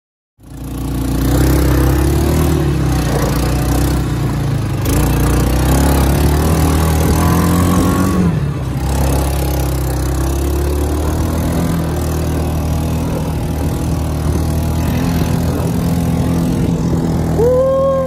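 Quad bike (ATV) engine running under way, starting about half a second in, its note rising and falling with the throttle.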